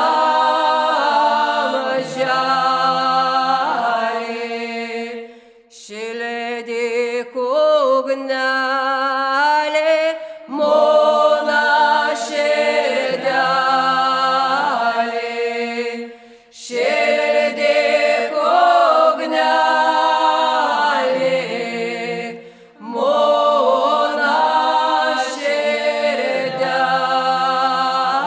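A Lithuanian ritual hymn sung a cappella by a group of voices, in phrases of about five to six seconds with short breaths between them, a low note held steady beneath the tune.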